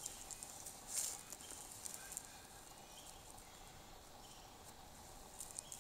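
Dry grass and brush rustling and crackling under puppies' paws and a kneeling man, in short bursts with the strongest right at the start and about a second in, then fainter. A few faint short chirps sound among the rustling.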